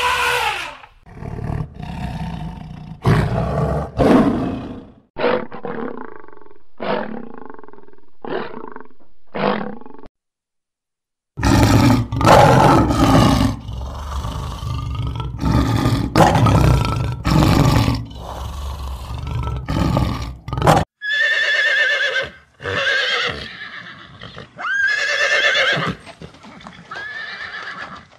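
Three animal recordings in turn. First a run of short elephant calls. Then, after a second's gap, a male lion roaring, a series of loud short roars one after another. Near the end, horses neighing with rising, wavering whinnies.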